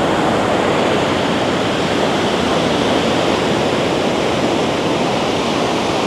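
Ocean surf washing up the beach at high tide: a steady, even rushing.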